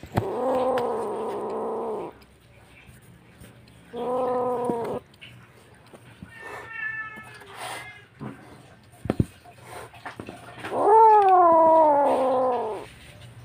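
A wild black-and-white kitten meowing loudly: three drawn-out cries, the first about two seconds long, a shorter one about four seconds in, and a last one near the end that falls in pitch, with a fainter, higher call between them. A single sharp tap sounds about nine seconds in.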